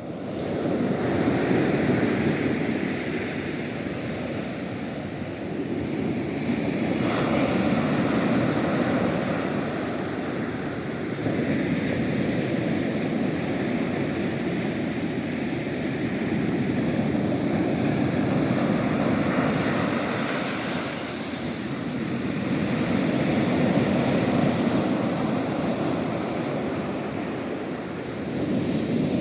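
Sea waves breaking on the shore in a heavy swell, a continuous roar that swells and eases every few seconds.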